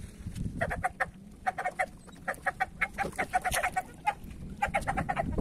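A chicken clucking, a rapid run of short clucks several to the second that stops and restarts.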